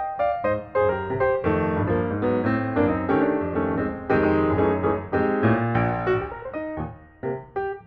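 Background piano music playing a steady run of notes, with a brief lull near the end.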